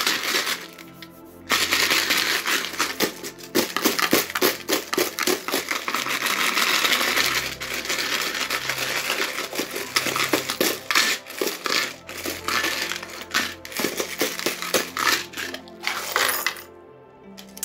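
A cupful of small divination charms rattling and clinking as they are shaken hard in a mixing cup for about fifteen seconds, starting after a short pause and stopping shortly before the end.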